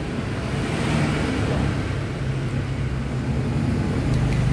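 Street traffic noise from motorbikes, a steady low engine hum, with a few faint clicks near the end.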